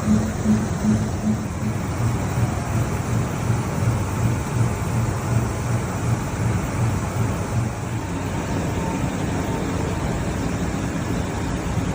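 DMG Mori five-axis CNC milling machine roughing a cake mold, its cutter running with a low hum that pulses about twice a second. The pulsing gives way to a steadier drone about eight seconds in.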